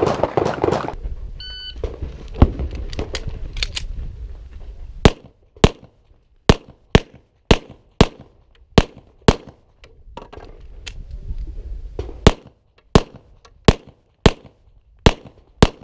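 Shot timer's start beep, then pistol shots: one shot, then a fast string of about two shots a second. A pause filled with a low rumble follows, then another fast string.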